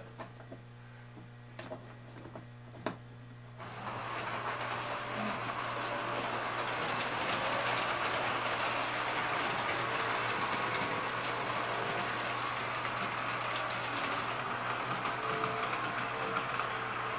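Two S-gauge model trains running on the track loop, a steady mechanical whirr of their small electric motors and wheels on the rails. It starts suddenly about three and a half seconds in, after a few faint clicks.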